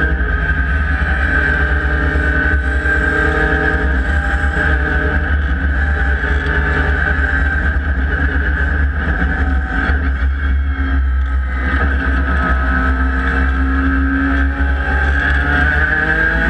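Several E Production race car engines running together, their pitches shifting against each other over a heavy low rumble, with engines rising in pitch near the end.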